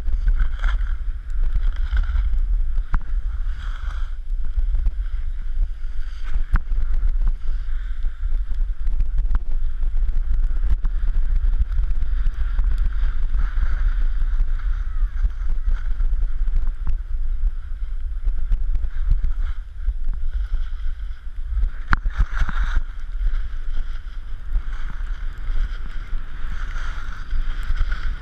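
Wind rumbling and buffeting on the microphone of a camera worn by a skier running downhill, with the hiss and scrape of skis sliding over snow that swells and fades with the turns.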